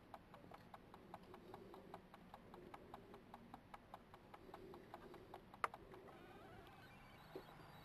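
Faint, quick crunching clicks, about four or five a second, from badgers or foxes chewing food, with one sharper click about five and a half seconds in; the clicking stops about six seconds in.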